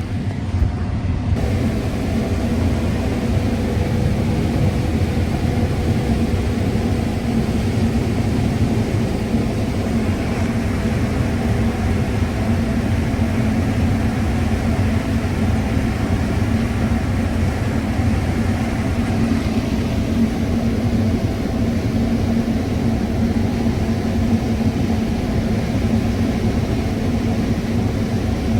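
John Deere combine running steadily while harvesting corn, heard from inside the cab: a constant engine and machinery drone with a steady hum that does not change pitch.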